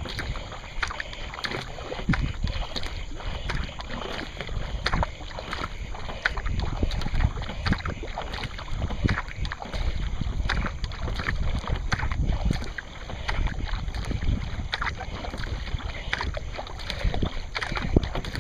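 Paddle blades splashing into the water in quick, even strokes, about two a second, with water rushing along the hull of a racing boat paddled at sprint pace. Low wind rumble on the microphone.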